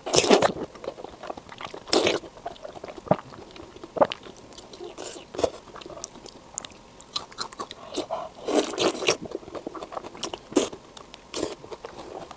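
Close-miked eating: irregular bites and chewing of lamb intestine, with crunchy, wet mouth sounds coming in uneven clusters.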